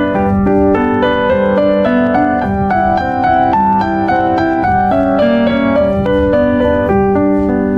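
Background piano music: a steady run of quick, evenly paced notes.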